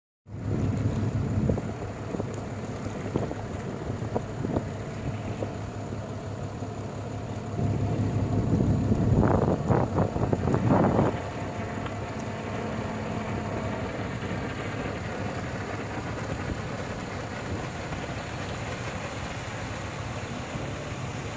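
Wind rumbling on the microphone in gusts, near the start and again from about eight to eleven seconds in, over the steady drone of the push boat's twin 200 hp Yamaha outboard engines running at speed.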